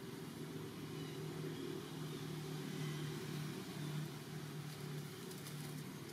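A low, steady engine hum, like a motor vehicle running at a distance, swelling slightly midway.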